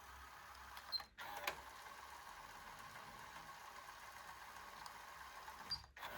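Pioneer KEH-P6600R car cassette deck's tape mechanism running quietly with a steady hiss, giving a few sharp clicks about a second in, and the sound briefly cutting out twice as the unit switches over.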